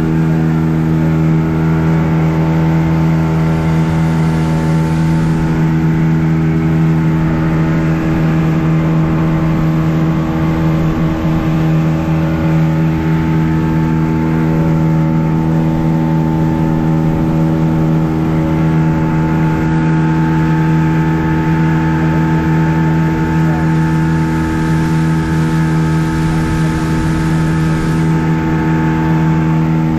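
A boat's outboard motor running steadily at a constant speed, with a steady hiss over it.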